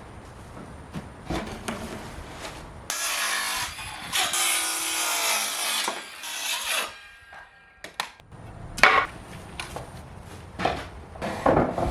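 Pallet wood being cut and worked with tools, with a loud stretch of sawing noise lasting about four seconds near the middle and shorter, sharper bursts later.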